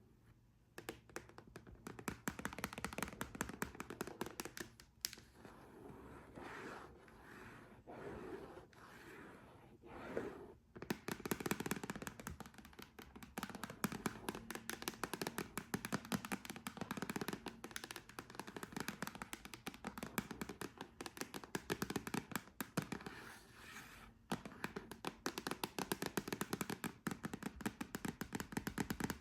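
Long fingernails tapping quickly on a hard surface, many taps a second, with stretches of nail scratching mixed in.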